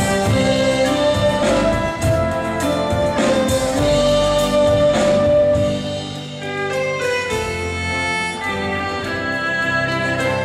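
A live band playing an instrumental passage: violin and flutes carry the melody over electric and acoustic guitars. It dips briefly in loudness about six seconds in.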